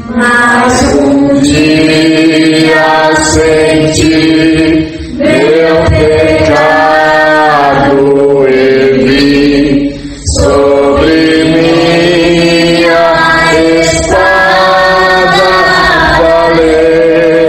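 Voices singing a hymn in long, held phrases, breaking briefly about every four to five seconds between phrases.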